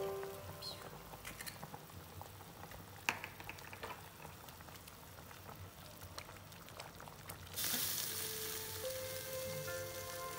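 Pot of Vietnamese sour fish soup boiling, a faint bubbling hiss with a couple of sharp clicks of a ladle against the steel pot. About three-quarters of the way through, the boil gets much louder as a bright, steady hiss.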